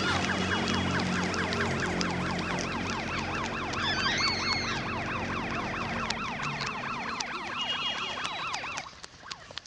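Film soundtrack: many overlapping, fast-warbling siren-like tones over a low sustained drone, cutting off abruptly near the end.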